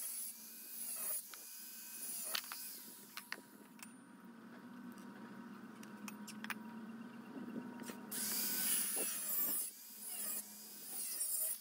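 Angle grinder cutting into a steel bar in short bursts. There are a few brief cuts in the first couple of seconds and a quieter stretch in the middle, then three louder cuts over the last few seconds.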